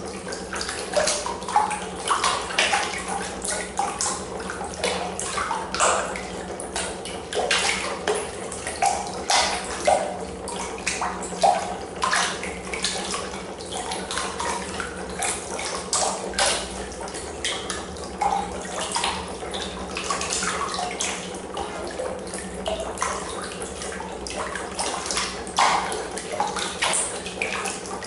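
Water splashing and churning irregularly in a plastic trough, thrashed by a homemade neodymium-magnet piston engine driven by a copper coil, with a steady low hum underneath.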